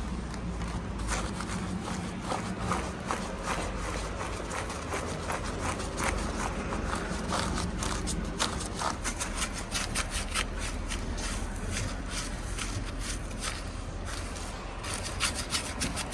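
Stiff-bristled wash brush scrubbing a soapy scooter tyre and wheel hub in quick, repeated strokes, over a steady low rumble.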